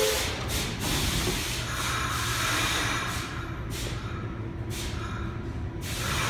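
Compressed air hissing from a 1975-1978 Pullman Standard R46 subway train standing at the platform with its doors shut, as it readies to pull out. The hiss runs in several spurts with short breaks and stops about six seconds in, over a low steady hum from the train.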